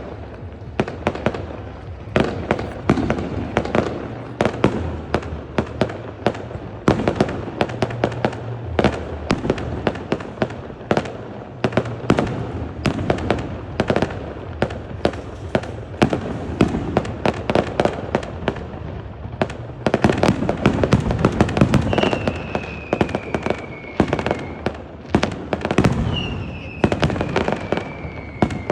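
Fireworks display: a dense, continuous run of cracks and bangs, several a second, with two falling whistles in the last third.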